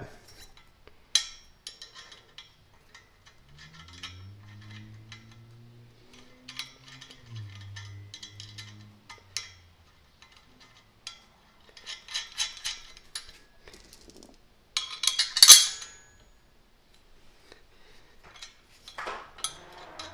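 Steel bolts and a nut clinking and clicking against the metal trap bar frame and sleeve as they are fitted by hand, in scattered taps and short runs, with one louder metallic clatter about 15 seconds in.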